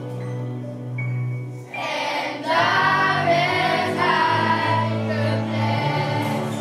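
Children's choir singing a song from a school musical over an instrumental backing, the voices coming in about two seconds in after a short stretch of accompaniment alone.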